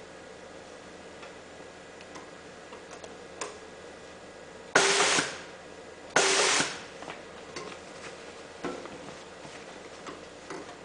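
Pneumatic automatic side-seaming machine letting off two short, loud hisses of compressed air about a second and a half apart, over a steady machine hum with a few light clicks.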